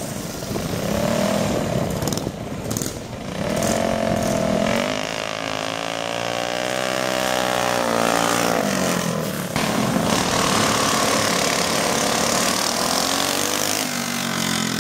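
Minibike engines revving as the bikes race past, the engine pitch rising and falling several times.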